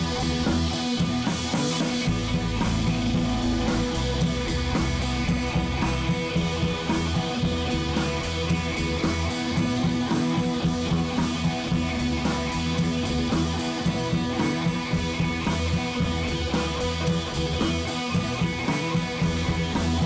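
Background rock music with guitar and drums, playing steadily.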